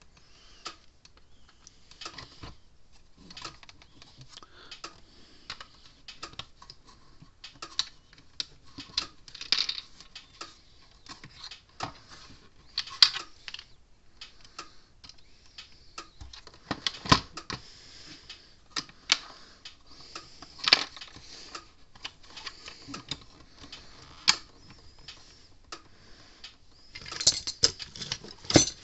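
Irregular clicks, taps and clatter of small parts and hand tools being handled while a fence charger is reassembled, with a few louder knocks about 13, 17 and 21 seconds in and a quick run of clicks near the end.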